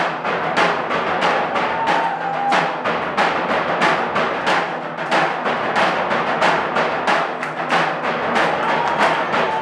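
A drum ensemble playing a steady, fast beat of loud strokes, about three to four a second.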